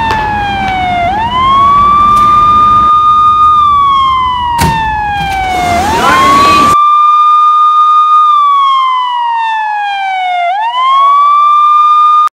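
Police-style siren wailing: a high tone held, then sliding slowly down and sweeping quickly back up, about every four to five seconds. It cuts off suddenly at the end.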